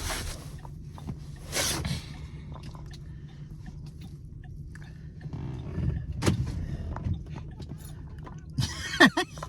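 Steady low hum of a car, with a few sharp knocks and rustles and a brief voice near the end.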